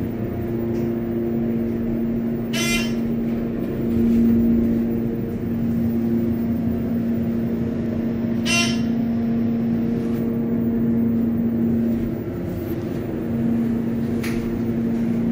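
Steady hum of a hydraulic elevator cab's ventilation fan, loud inside the small steel car. Two short buzzy rattles sound about three and nine seconds in.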